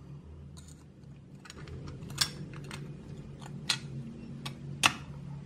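Clear plastic window glazing being pressed into the die-cast metal body shell of a Ferrari 599 model car: several light plastic clicks and taps against the metal, three of them sharper. A low steady hum runs underneath.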